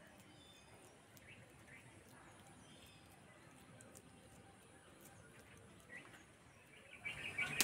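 Faint background ambience with scattered bird chirps, and a short louder burst of sharp chirps and clicks near the end.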